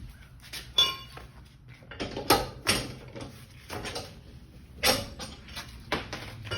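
Scattered metallic clanks and knocks from tools or parts being handled, irregular and about one a second, over a low steady hum.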